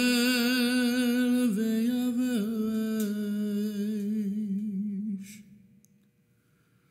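Unaccompanied male cantorial chant in Hebrew: one long melismatic note sung with vibrato, stepping down in pitch twice, then fading out about five seconds in, leaving near silence.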